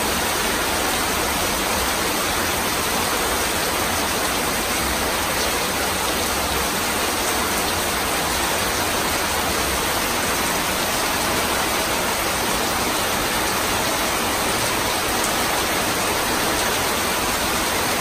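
Heavy rain falling on corrugated metal roofs and pouring off the eaves: a steady, dense hiss that does not let up.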